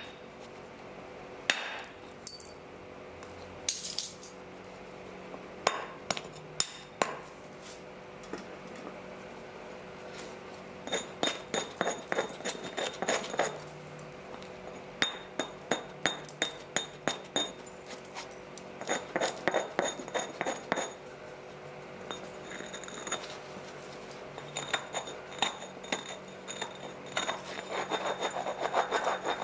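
Helgoland flint being knapped: sharp clicks and clinks of stone struck. There are a few single blows in the first seconds, then quick runs of light taps, several a second.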